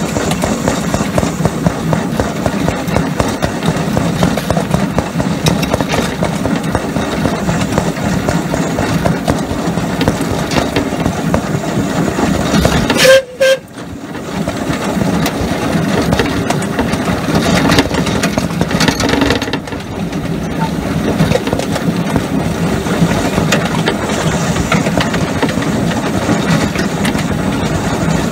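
Miniature 7¼-inch-gauge steam locomotive running along the track, heard from the footplate as a steady, loud mix of engine and wheel-on-rail noise. About halfway through there is a short loud spike and the sound briefly cuts out before the running noise picks up again.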